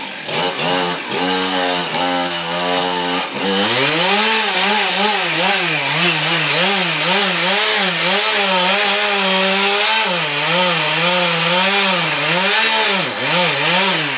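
Two-stroke chainsaw idling with a few short blips of the throttle, then opened up about three seconds in and held at high revs while cutting into a tree trunk, its pitch dipping and recovering over and over as the chain bites into the wood.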